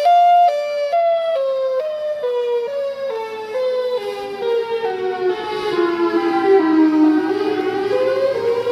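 Federal Signal Thunderbolt 1003 outdoor warning siren sounding its alternating wail: a loud tone switching between two pitches about twice a second. From about a second in, both pitches slide steadily down as the siren winds down, then they start climbing again near the end as it winds back up.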